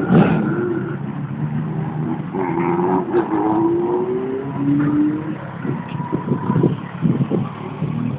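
Road traffic going by, with one vehicle's engine accelerating, its note rising and then dropping back in steps as it shifts gear. A sharp knock comes just after the start.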